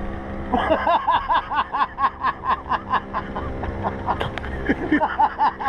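A man laughing in a quick run of high, rising-and-falling syllables, about four a second, over the steady hum of a Honda 90 outboard motor.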